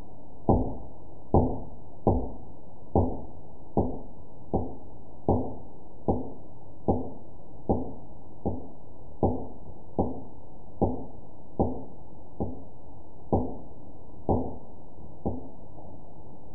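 A steady series of dull knocks, about nineteen of them, evenly spaced a little more than one a second.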